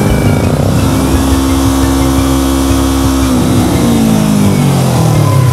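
A fast road vehicle's engine at high revs, holding one steady note for about three seconds, then falling steadily in pitch over the last two.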